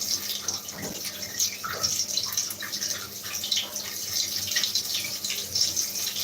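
Tap water running and splashing in a sink.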